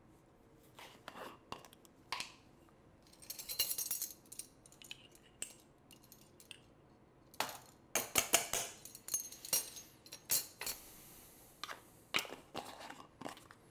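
Scattered small clinks and clicks of a ring of metal measuring spoons against a glass spice jar as ground cumin is scooped out, with brief scraping, and clusters of clicks in the second half.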